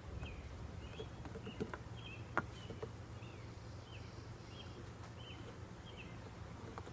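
A small bird chirping over and over, short chirps about twice a second, with a few light clicks and knocks near the start over a steady low hum.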